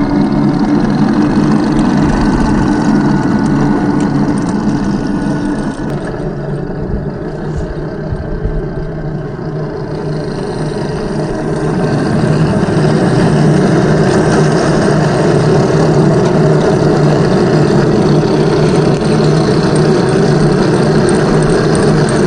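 Heng Long M1A2 Abrams RC tank driving, its sound unit playing a steady running-engine sound along with the noise of its drive and tracks. It drops quieter for a few seconds about six seconds in, then comes back up.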